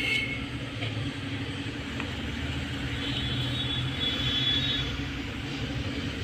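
Steady low background rumble and hum of vehicle noise, with a faint click about two seconds in and a faint high tone for about a second and a half around the middle.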